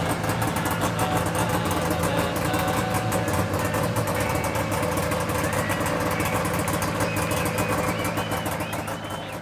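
1996 Arctic Cat Puma 340 snowmobile's two-stroke twin engine idling steadily, fading out near the end.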